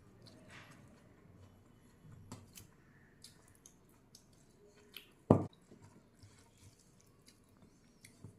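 A person chewing food with their mouth close to the microphone: soft wet, smacking mouth noises and small clicks. One loud, short thump about five seconds in.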